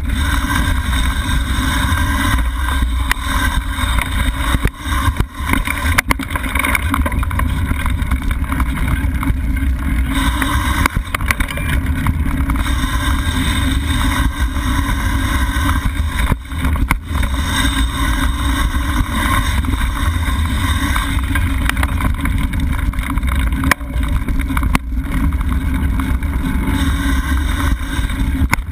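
Mountain bike riding a dirt singletrack: steady wind buffeting on the microphone over a low rumble from the tyres, with scattered sharp rattles and knocks from the bike over bumps.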